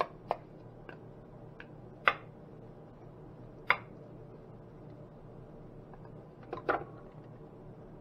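Wooden spoon scraping ground fish out of a plastic food processor bowl into a ceramic dish: a few sharp taps and knocks of spoon on plastic and dish, the loudest about two seconds in and again near four seconds, with a short cluster near the end.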